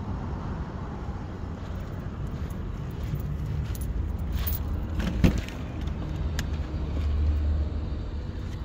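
A single sharp click about five seconds in as the driver's door of a Lexus LS sedan is unlatched and swung open, over a steady low rumble that swells briefly near the end.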